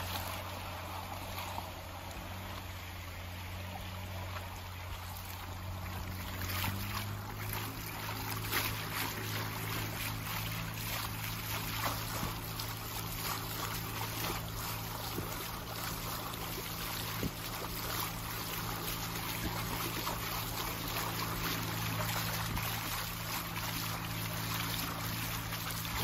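A river boat's motor running with a steady low hum, its note shifting slightly about six and a half seconds in, under the continuous rush and splash of river water along the hull.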